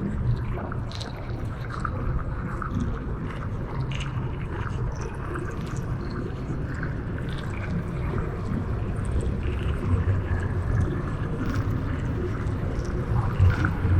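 Underwater ambience: a steady low rumble with gurgling and scattered small clicks and crackles.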